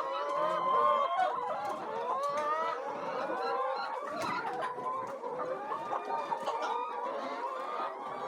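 A flock of laying hens clucking, many calls overlapping continuously.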